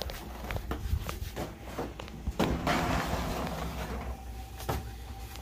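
A disposable aluminium foil pan is handled and slid onto an oven's wire rack: a few light knocks, then a rushing scrape lasting about two seconds, and one sharper knock near the end.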